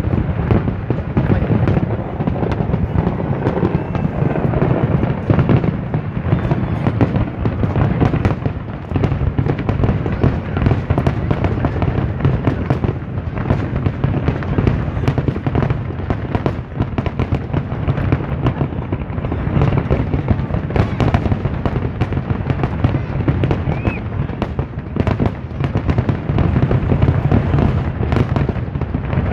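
Aerial fireworks display: many shells bursting in quick succession, a loud, unbroken barrage of bangs and crackling.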